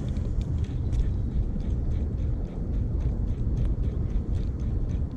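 Uneven low rumble of wind buffeting the action-camera microphone, with faint light ticks scattered through it.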